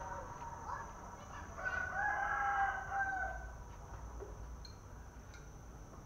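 A rooster crowing once: a single long call starting about a second and a half in and held for about two seconds.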